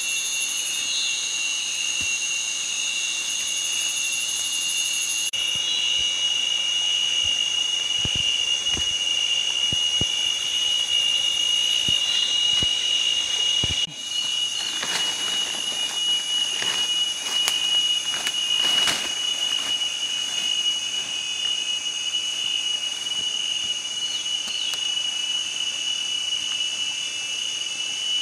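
Steady, shrill chorus of forest insects, several high tones held without a break. Over it come a few short knocks and, about halfway through, a stretch of scraping from digging by hand in the soil.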